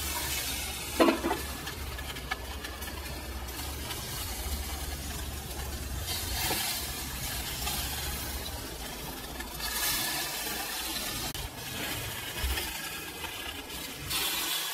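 Whole chicken sizzling on a barbecue grill as it is brushed with basting liquid, the hiss swelling every few seconds, with a knock about a second in.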